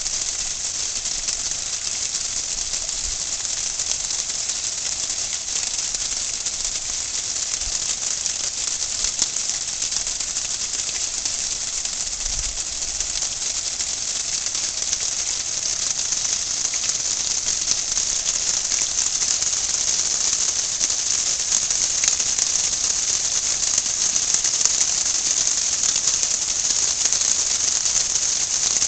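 Small garden waterfall fountain splashing steadily into a pond: a constant high hiss that grows a little louder in the second half.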